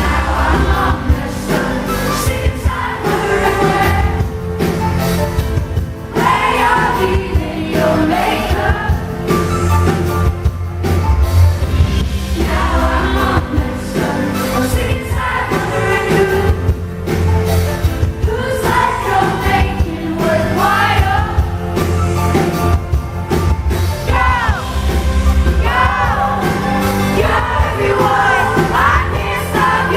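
Live band performance of a pop-rock song, a woman singing over the band, recorded from the crowd.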